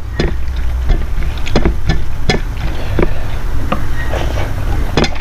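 A person chewing and eating idli, sambhar and rice close to the microphone: irregular wet smacks and clicks, about two a second, over a steady low rumble.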